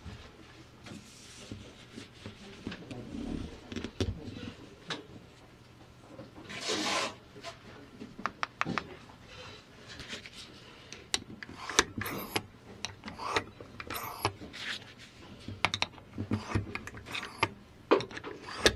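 Handling noises from a Kawasaki ZZR1100's bank of four Keihin CVK carburettors being worked by hand: scattered sharp clicks and knocks of metal parts and linkage, coming thicker in the second half, with a brief rubbing noise about seven seconds in.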